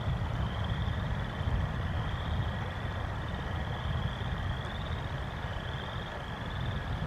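Thunderstorm heard on an outdoor nest-camera microphone: a steady low rumble with a hiss of rain. A faint high trill repeats about once a second over it.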